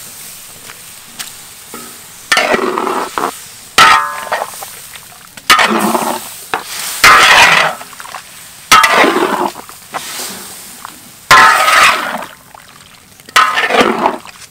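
Metal spatula scraping and clanking against a large wok in repeated stirring strokes, about one every second and a half, as a curry of whole eggs and tomatoes is turned over, with light sizzling underneath.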